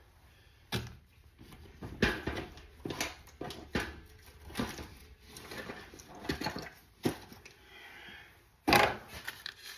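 Tools and small items being handled and rummaged in a tool bag: irregular knocks and clatter with short rustles, the loudest knock near the end.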